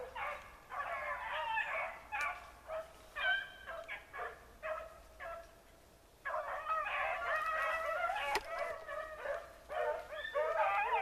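A pack of rabbit-hunting beagles baying and yelping in short, overlapping cries. They break off briefly about six seconds in, then bay together more thickly and steadily.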